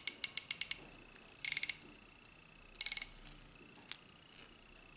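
Craftsman Premium Grade ratchet's 84-tooth gear and pawl clicking in four short runs of rapid fine clicks as the drive is turned by hand with the cover plate off. It is a function check of the freshly reassembled mechanism, which is engaging properly so far.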